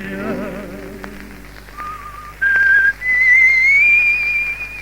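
Someone whistling a short melody on an old 78 rpm record. It climbs in three steps to a long, high held note, with surface clicks and hum from the shellac disc beneath. The tail of a sung note with vibrato fades out in the first second.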